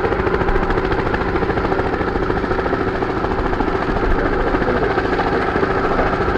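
Bristol 171 Sycamore helicopter running, its Alvis Leonides radial piston engine and main rotor giving a steady, rapid pulsing with a held hum.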